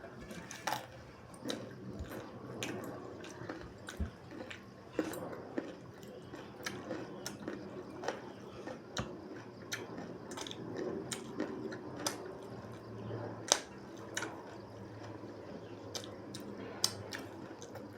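Close-up eating sounds of pork and rice: chewing with irregular, wet mouth clicks and smacks.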